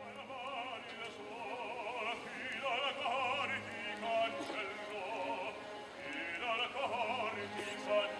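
Live opera: a singer's voice with wide vibrato over orchestral accompaniment.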